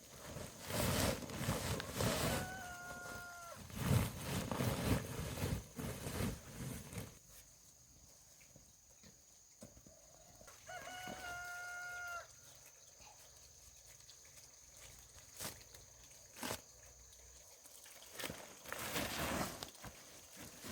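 A rooster crowing twice, each crow a single held call, the second about eight seconds after the first. Louder rustling and knocking movement noises fill the first several seconds and come back near the end.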